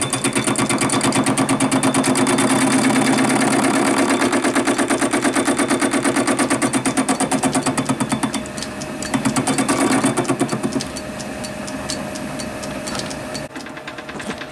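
Small belt-driven lathe turning a zinc-aluminium flywheel casting at reduced speed, the tool cutting the face with a fast, even pulsing. It is loud for the first eight seconds or so, swells again briefly around ten seconds, then runs lower.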